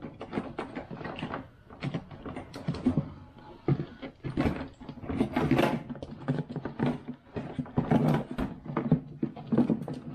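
Plastic windshield washer fluid tank being worked loose and pulled out from behind a car's front bumper: irregular knocks, scrapes and rattles of hard plastic against the body, hoses and wiring, busier about halfway through and again near the end.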